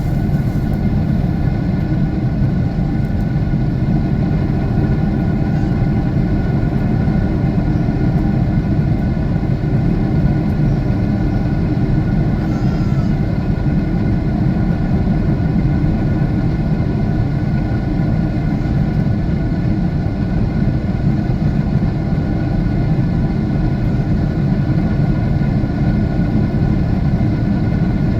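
Steady jet engine and airflow noise heard inside an airliner cabin in flight, a deep, even rumble with a faint hum of steady tones over it.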